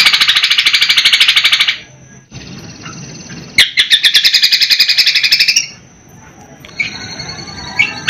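Cucak kombo singing a fast, rattling trill of about ten pulses a second: the sparrow-style 'gereja helikopter' phrase in its repertoire. The trill comes twice, with softer chirps and thin whistles between.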